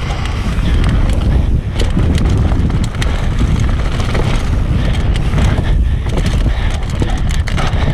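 Mountain bike, a Transition Patrol, descending dirt singletrack at speed, heard through a GoPro on the rider. There is a constant low rumble of tyres on dirt and wind on the microphone, with frequent clacks and rattles from the bike over roots and rocks.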